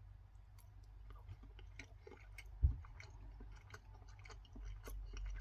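Faint chewing of a mouthful of microwave rice, with scattered small mouth clicks and one soft, low thump about two and a half seconds in.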